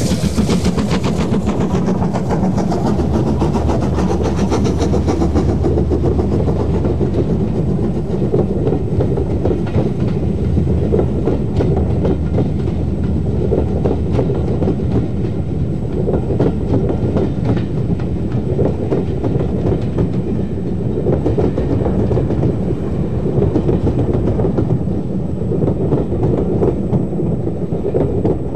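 LMS Jubilee class three-cylinder 4-6-0 steam locomotive Bahamas running past with a train of coaches. The sound is loudest and sharpest as the engine goes by at the start, then turns to a steady rumble with the coach wheels clattering over the rail joints.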